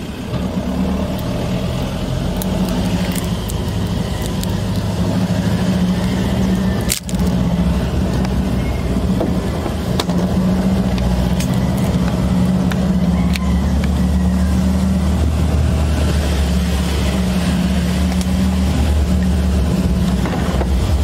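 A motor vehicle's engine running steadily, a continuous low hum.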